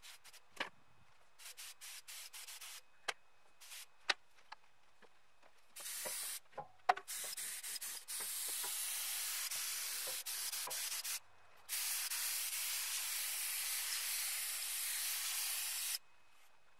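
Compressed-air paint spray gun hissing as it sprays base-coat paint. A few faint clicks come first; from about six seconds in the hiss starts in short bursts, then runs in long steady passes with a brief break where the trigger is released, and cuts off sharply near the end.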